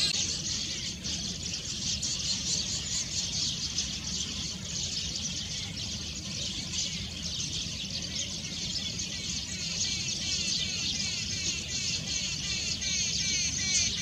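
Small birds chirping and twittering continuously in a high-pitched chorus, over a steady low rumble.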